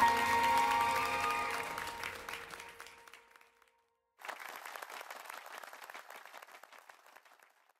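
A short music jingle fades out over the first few seconds, then after a brief gap an applause sound effect of many hands clapping plays for about three seconds and fades away.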